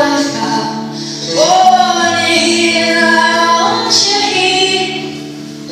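Recorded song playing: a woman's sung vocal line with long held notes, one sliding up about a second and a half in, over a steady backing.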